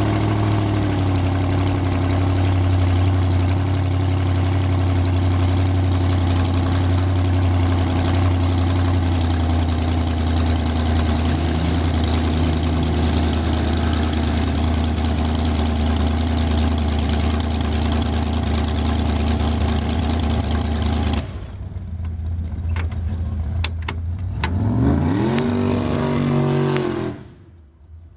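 Dragster engine idling steadily as the car rolls slowly, then shutting off abruptly about three-quarters of the way through. A few clicks follow, and near the end an engine briefly rises in pitch and then cuts out.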